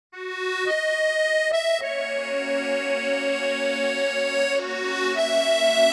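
Accordion playing the slow instrumental introduction to a song: long held melody notes over sustained chords, starting a moment in.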